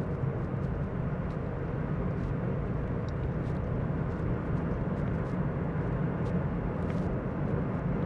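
Steady road and wind noise of a car driving along a highway at speed, a low even rumble with a few faint ticks.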